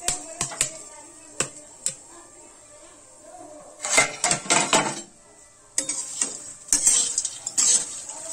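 Metal lid clinking off a metal kadhai, then a metal spatula scraping and knocking against the pan as it stirs freshly popped popcorn, in a burst about four seconds in and again from about six seconds on.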